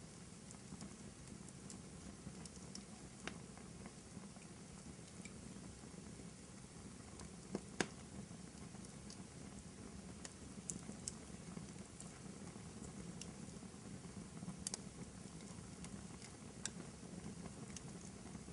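Fireplace fire crackling softly: a low steady hiss of burning logs with scattered sharp pops and snaps, a couple of louder pops about eight seconds in.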